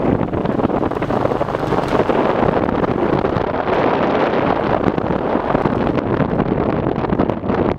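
Steady wind buffeting the microphone of a moving bike, mixed with the rush of the ride along a paved road.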